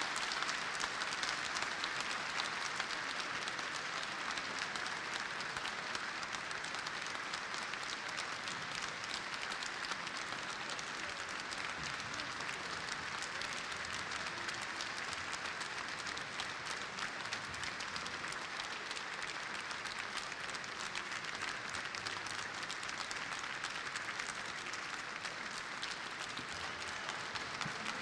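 Concert audience applauding steadily after an orchestral performance: dense clapping with no music.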